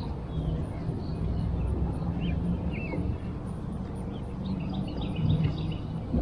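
Birds chirping now and then over a steady low hum and outdoor background noise.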